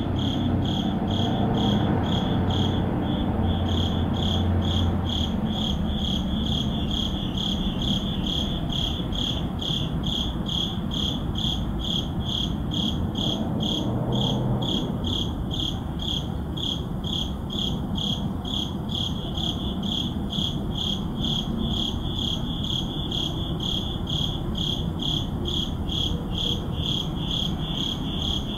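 Crickets chirping in a steady, even rhythm of high, evenly spaced chirps, several a second, over a low background rumble that is stronger in the first few seconds and swells briefly around halfway.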